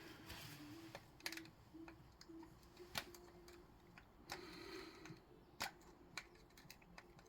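A few faint, sharp metallic clicks and softer taps against near silence: a piston gudgeon-pin circlip and the piston being handled while the circlip's seating in its groove is checked.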